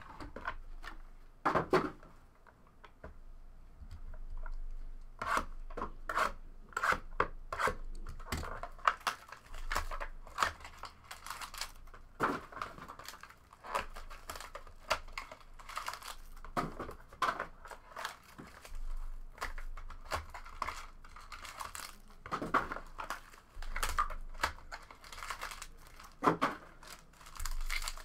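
Foil trading-card pack wrappers crinkling and tearing as hands handle and rip them open, in many irregular short crackles.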